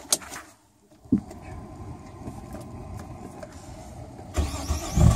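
A car engine with a blown head gasket being started: a click, a few seconds of a steady low hum, then the engine catches about four seconds in and runs loudly.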